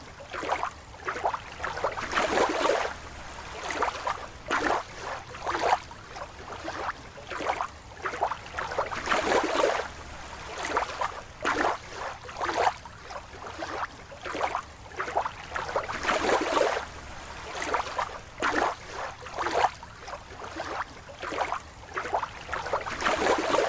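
Water sloshing and gurgling in irregular surges, roughly one a second.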